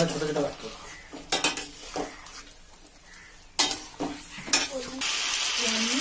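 A spatula stirring fried chicken in a stainless steel pan, with a few sharp knocks and scrapes against the metal. About five seconds in, a steady sizzling hiss comes up.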